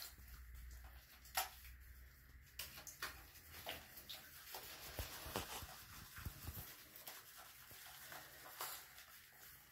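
Hands scrubbing shampoo into a wet puppy's fur: faint, soft rubbing and squishing with scattered small taps and one sharper click about a second and a half in.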